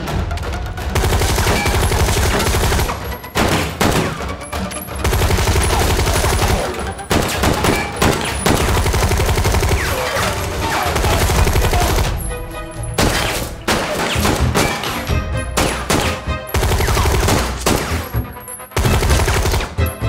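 A gunfight: many shots in quick succession from pistols and automatic weapons, with only brief lulls, over tense action music.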